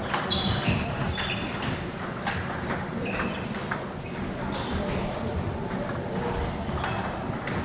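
Table tennis balls clicking off paddles and tables in an irregular patter of sharp knocks and short high pings, over a murmur of voices.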